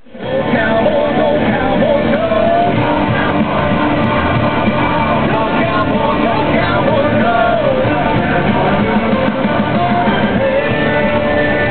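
Rock music with singing, fading in quickly at the start and then running steadily.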